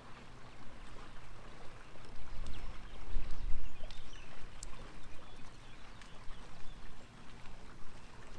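Water lapping against a small aluminium fishing boat's hull, with wind rumbling on the microphone that swells about halfway through, and a few faint ticks.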